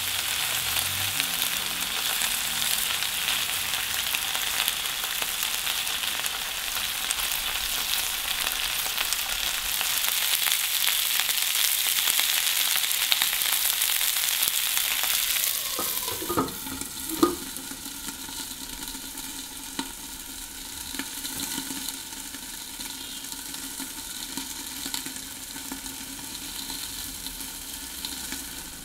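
Meat-stuffed green peppers sizzling in oil in a frying pan. About sixteen seconds in, a glass pan lid clanks on twice, and the sizzling goes on much quieter and muffled under it.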